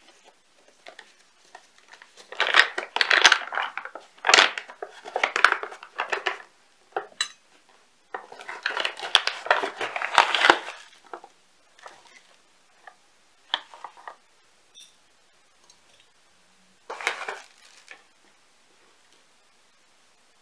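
Objects being handled: two spells of clattering and crinkling, each a few seconds long, then a few single short knocks.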